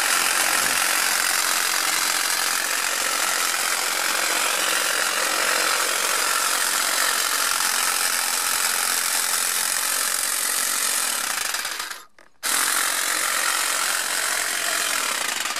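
Eckman telescopic electric pole hedge trimmer running, its motor driving the reciprocating blades through a tall hedge. It cuts out for about half a second twelve seconds in, starts again and stops near the end.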